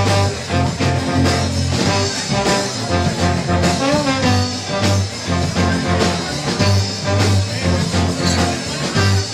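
Live band playing an instrumental passage: trombone and electric guitar over a changing bass line and drums, with no singing.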